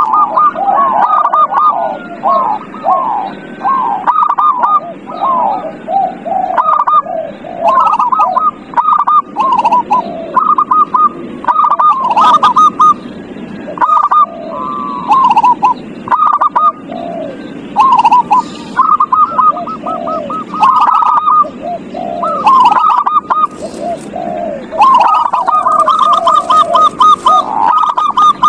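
Several zebra doves (perkutut) cooing, their phrases of quick repeated notes and falling coos overlapping almost without pause.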